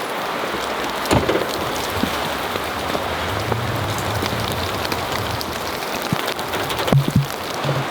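Steady rain falling, with a constant hiss and scattered drops ticking. There is a low hum in the middle, and a few dull knocks about a second in and again near the end.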